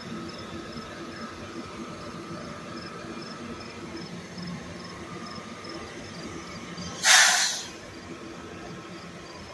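An NJ Transit commuter train hauled by an ALP-46A electric locomotive rolls steadily past, its wheels rumbling on the rails. About seven seconds in, a loud burst of hissing air comes from the train and lasts under a second.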